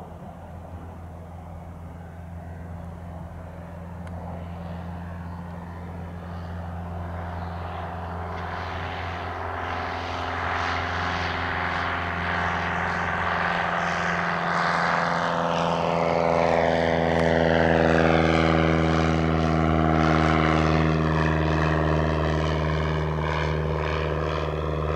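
Piper J3 Cub's Continental A-65 four-cylinder engine and propeller running at climb power: a steady drone that grows louder as the plane comes closer, loudest about three quarters of the way through.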